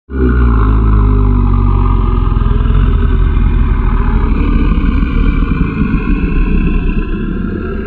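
Monster creature sound effect: one long, loud, deep growl with a rough, rattling texture, starting abruptly and fading away at the end.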